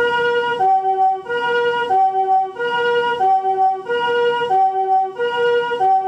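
Japanese ambulance two-tone "pee-poh" siren of the newer chord type: each tone is a chord of several pitches, and it alternates between the two chords about every two-thirds of a second.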